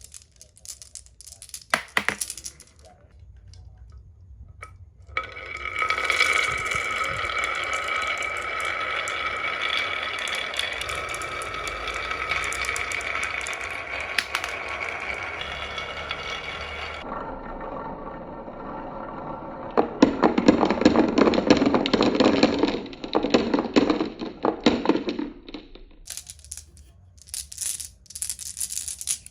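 Marbles clicking and rolling down a marble run: a few scattered clicks, then many marbles rattling along the track together for about twelve seconds, a louder dense clatter of marbles about twenty seconds in, and a few last clicks near the end.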